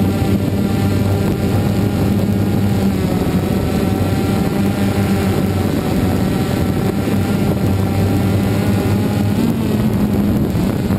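DJI Phantom 2 quadcopter's four electric motors and propellers running with a steady, loud drone, heard up close from the GoPro mounted on it. The pitch wavers a little near the end as the drone comes down low over the lawn.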